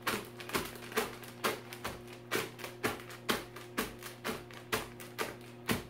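Background music with held notes, over a run of sharp knocks and crunches about twice a second from a fist crushing Flamin' Hot Cheetos inside their bag on a countertop.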